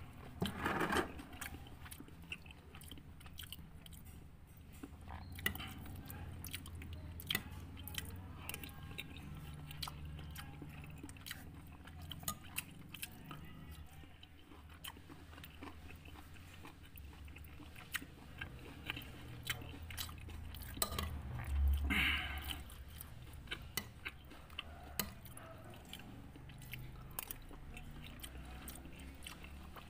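A man chewing and eating satay and rice close to the microphone, with many small scattered clicks from mouth and spoon. There is one louder noise a little past two-thirds of the way through.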